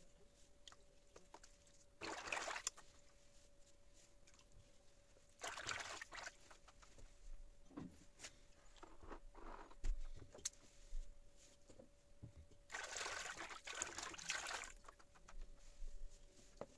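Water sloshing and trickling in a plastic basin in three short bursts, with a few small knocks and clicks between them.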